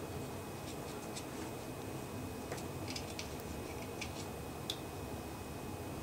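Faint, scattered light clicks and taps from a small plastic refrigerator timer and meter leads being handled, over a steady low room hum.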